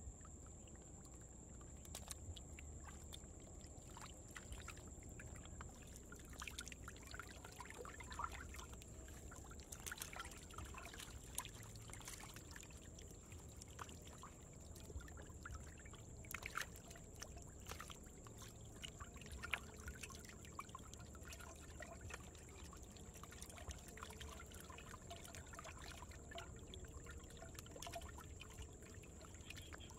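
Quiet trickling and lapping of shallow muddy water, broken by many small scattered splashes as catfish swim and flick their tails in the pool.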